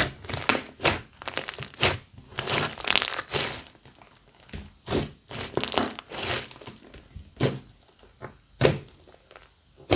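Homemade glue-and-foam-clay slime being pressed and squeezed by hand, with a quick run of sticky crackles and pops that thins out to a few separate louder pops in the second half.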